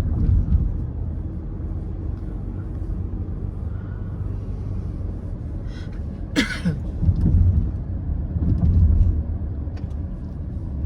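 Car driving, with steady road noise and a low rumble. A brief sharp noise comes about six and a half seconds in.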